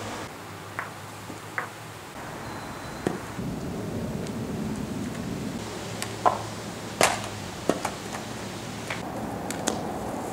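Juggling props, clubs among them, being caught and handled: irregular sharp slaps and knocks, mostly one at a time with gaps between, the loudest a little after six and seven seconds in, over a steady low outdoor background.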